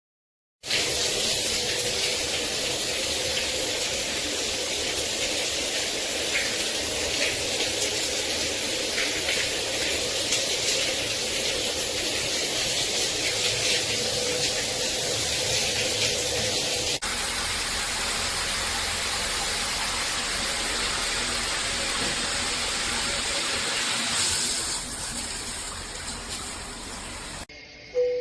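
Shower head spraying water in a steady hiss. The sound cuts abruptly about 17 seconds in to a second, similar stretch of spray, and fades down near the end.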